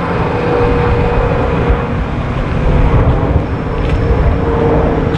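Steady low rumble of street traffic, with a constant mid-pitched hum running through it.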